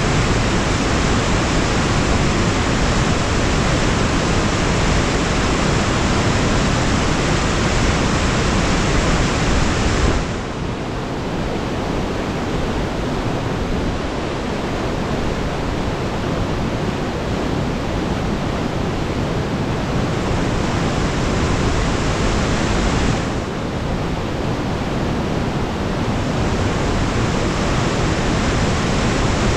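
Fast whitewater of a creek in high flow, rushing steadily just below the bridge, with a waterfall upstream. The rush turns a little duller and softer about a third of the way in, and brightens again near the end.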